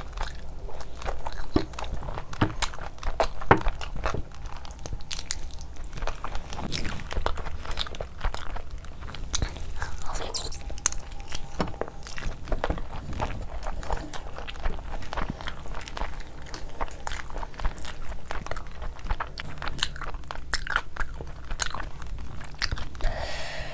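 Close-miked eating: a person chewing and biting chicken in thick curry gravy, eaten by hand, with a constant run of wet mouth smacks and small clicks.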